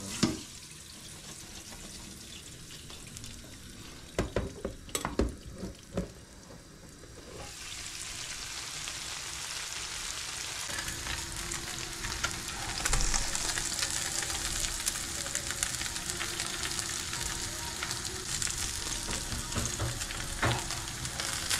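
Horse mackerel and whiting coated in corn flour frying in butter in a pan: a few knocks early on, then a sizzle that builds from about a third of the way in and stays loud.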